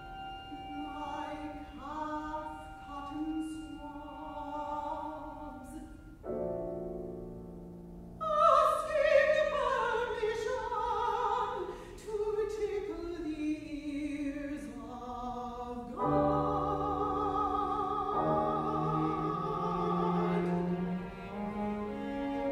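Classical soprano singing an art song accompanied by piano, violin and cello. About eight seconds in the voice enters loudly and its phrase falls steadily in pitch over several seconds, followed by held notes with vibrato.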